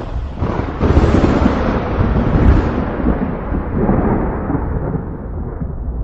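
Thunder: a crack about a second in, then a long rolling rumble that grows duller as it dies away.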